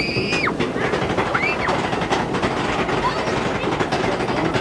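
Steady rumbling and rattling of a river-rapids raft ride, with two short high-pitched squeals near the start and about a second and a half in.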